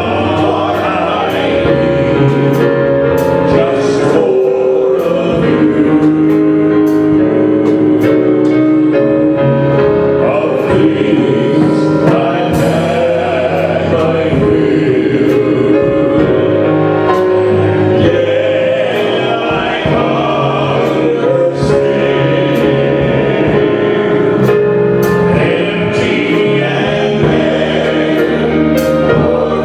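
Church worship music: voices singing together over instrumental accompaniment, continuous and steady.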